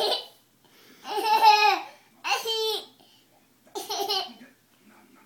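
Young child laughing in three short, high-pitched bursts, about a second apart.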